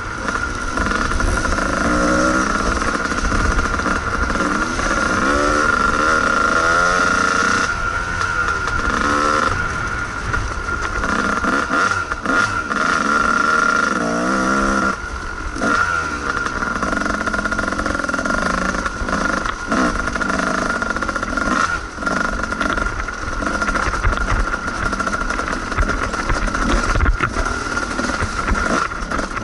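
Kawasaki KDX220's two-stroke single-cylinder engine revving up and down in rising and falling pitch as the throttle is worked on trail.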